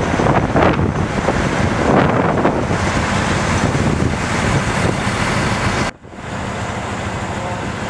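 Truck engines running with wind buffeting the microphone. About six seconds in the sound breaks off suddenly and gives way to a steadier, quieter engine hum.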